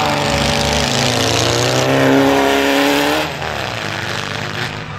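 Off-road buggy engine revving loud on a dirt track. Its pitch climbs and holds high, then drops away about three seconds in.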